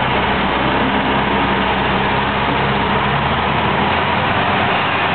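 Tourist road train's engine running steadily as the train rolls along, a low hum under an even rumble of road noise.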